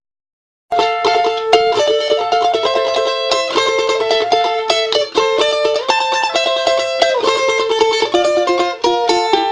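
Background music: a fast, busy plucked-string instrumental tune that starts abruptly after a moment of silence at the beginning.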